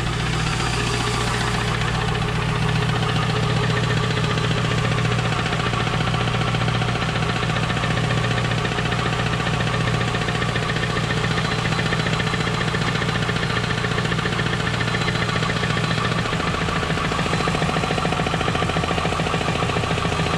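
Pontiac Trans Am's LS1 V8 idling with the transmission off and the bare flywheel spinning, a steady knock in the running. The knock is still there with a new pilot bearing fitted, and the owner takes it for a rod knock in the number 8 cylinder, quieter than most rod knocks he has heard. The low engine note shifts slightly about sixteen seconds in.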